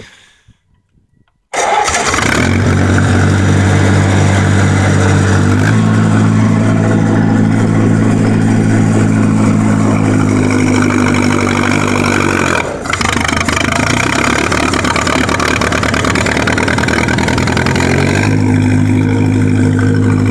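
1949 Massey-Harris 22 tractor's four-cylinder engine running with a steady, even pulse, cutting in abruptly after about a second and a half of near silence. Its tone shifts about six seconds in, dips briefly near thirteen seconds, and shifts again near eighteen seconds.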